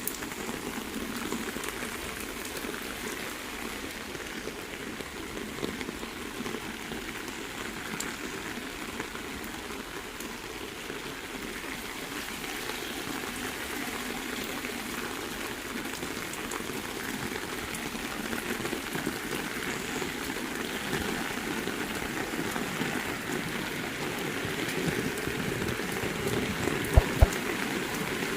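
Heavy rain falling steadily, with a couple of sharp knocks near the end.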